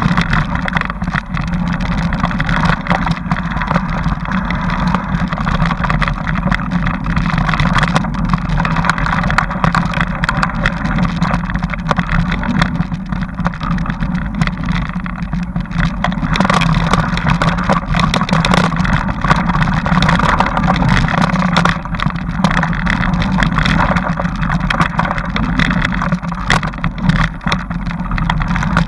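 Continuous riding noise of a bike travelling along a rough dirt forest trail, picked up by an onboard camera: a steady low drone with frequent small knocks and rattles from the bumpy ground.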